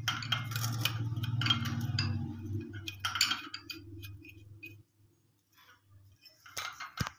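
Small clicks and clinks of a chrome angle valve fitting being turned and worked by hand, with a low steady hum underneath that dies away about two-thirds of the way through. A sharper knock comes near the end.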